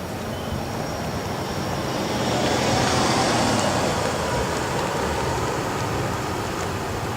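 A car passing by: its road and engine noise swells to a peak about three seconds in, then slowly fades.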